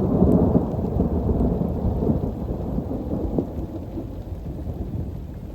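Rolling thunder rumbling, loudest in the first second or two and slowly dying away, with rain falling.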